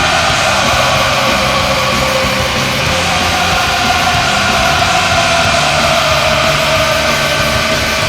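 Stockton Heat's arena goal celebration: the goal horn's blast trails off at the start as a loud hard-rock goal song plays over a dense wash of arena noise.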